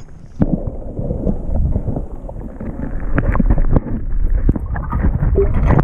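Rumbling wind noise on the microphone, with rustling and short knocks from the camera being handled.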